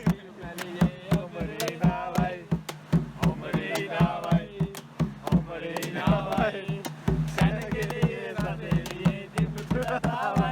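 Music with a steady drum beat and a singing voice.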